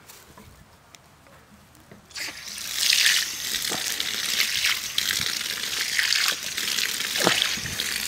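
A steady stream of liquid pouring and splashing onto a potted plant, starting about two seconds in.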